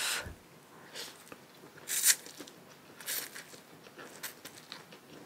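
Close-miked eating of hot chicken noodle soup: short slurps and mouth sounds about once a second, the loudest near the start and about two seconds in.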